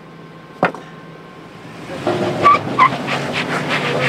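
A 2005 Lexus GX470's 4.7-litre V8 building revs as it climbs a rock ledge, with tyres scrubbing and crackling on the slickrock. Two short high squeaks come a little after halfway, and a single sharp knock comes under a second in.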